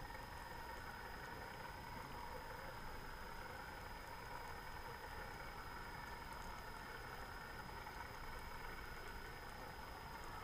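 Steady underwater ambience heard through the camera: a faint even hum with a few steady tones and occasional faint ticks.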